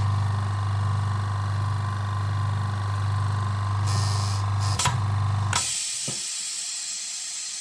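Black & Decker BXCMX106HE oil-free air compressor running with a steady low hum, making a very awkward noise because its air intake is still blocked by a red plug. There is a click a little under five seconds in; the motor stops about half a second later, and a steady hiss of air follows.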